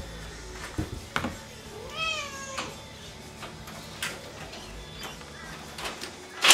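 A domestic cat meows once about two seconds in, a single call that rises and then falls in pitch. A few sharp clicks and knocks sound around it, the loudest right at the end.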